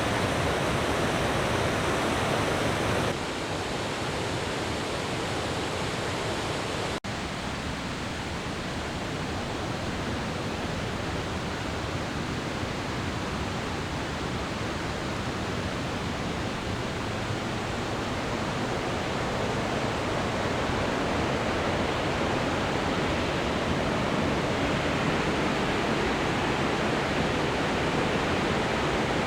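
The River Tees rushing over rocks as a steady, even roar of water. The level drops abruptly about three seconds in, with a brief break a few seconds later, where the sound cuts between shots.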